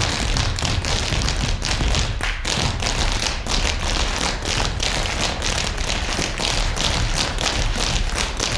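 Dancers' feet tapping and stamping on a stage floor in a quick, steady rhythm, about three steps a second, over a low rumble.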